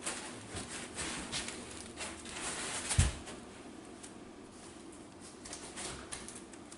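Hands handling computer parts and tools: irregular light clicks and rustling, with one sharp knock about three seconds in, then quieter fiddling.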